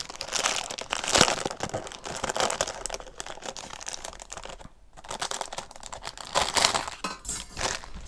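Clear plastic bag crinkling and rustling as a motherboard I/O shield is unwrapped and handled, with a short lull about five seconds in.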